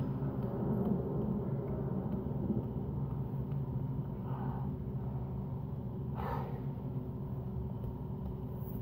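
Steady low room hum with faint steady tones, and two soft breaths, one about halfway through and a stronger one about two-thirds through. No slaps are heard.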